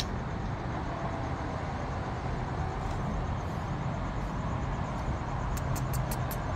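Steady low rumble and hiss of outdoor background noise, with a quick run of about five sharp clicks near the end.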